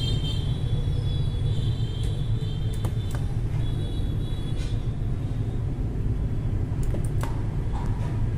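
Battery spot welder firing as its copper electrodes, on braided welding cables, are pressed onto 0.2 mm nickel strip on a battery cell. A few sharp snaps come in two close pairs about three and seven seconds in, over a steady low rumble.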